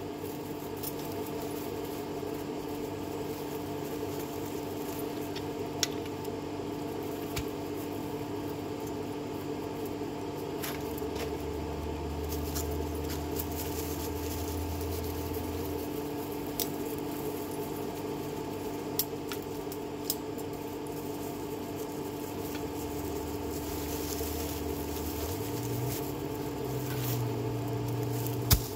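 Vehicle engine running steadily, its low hum shifting in pitch a couple of times, with scattered sharp clicks and rattles.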